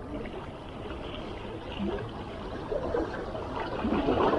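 Small sea waves lapping and washing against shore rocks, swelling louder near the end.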